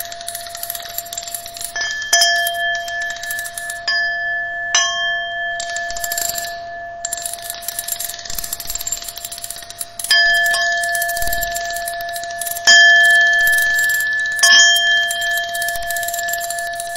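Homemade noise-music track: sharp bell-like metallic strikes at irregular intervals, each ringing and fading over two steady high tones and a hiss.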